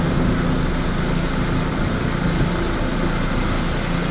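Cabin cruiser under way: a steady engine drone mixed with the rush of wind and water past the hull.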